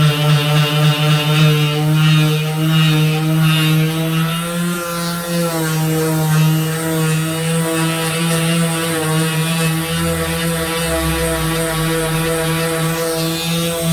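Handheld electric power tool running with a steady motor hum, its pitch wavering slightly about five seconds in.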